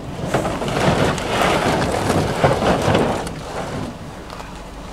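Rotomolded plastic hull of a Jackson Coosa HD kayak scraping and rubbing as it is slid across a pickup truck's tailgate, a rough, crackly rasp that eases off about three seconds in.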